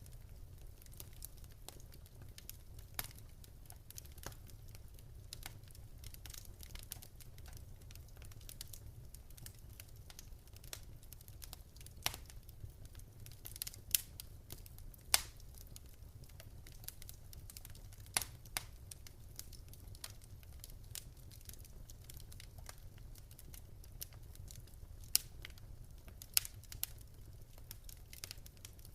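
Wood fire burning in a fireplace, crackling and popping irregularly over a low steady rumble, with a handful of louder sharp pops.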